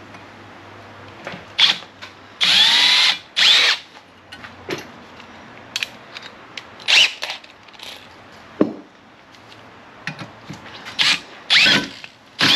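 Power drill run in short trigger bursts, its motor whining up each time, as it cuts out a hole in the mounting plate. Softer clicks and scraping come between the bursts.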